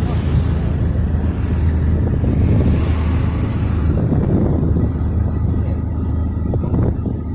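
Steady low rumble of road vehicle noise.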